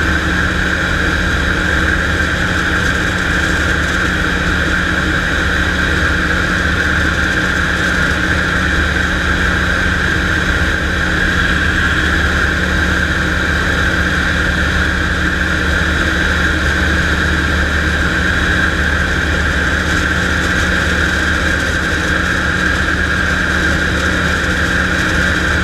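Storch light aircraft's engine and propeller running steadily in flight, heard from inside the cockpit.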